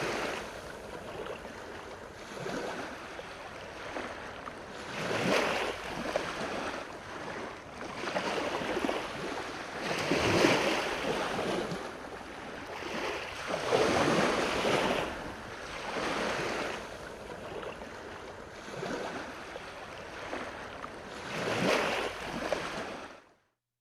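Lake Superior waves washing in, a hiss that swells and falls away every two to three seconds.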